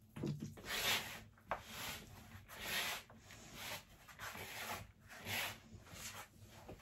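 Hands rubbing and pressing crumbly, freshly moistened flour-and-butter dough against the sides of a wooden bowl, a soft rough swish with each stroke, a little more than one a second. The dough is being gathered together, not kneaded, as water is worked in.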